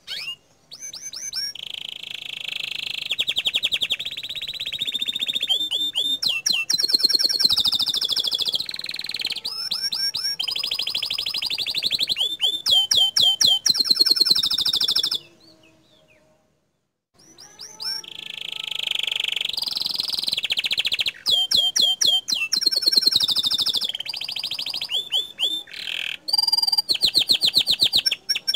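Domestic canary singing vigorously: long runs of rapid trills and rolling notes. The song comes in two bouts with a short break about halfway through.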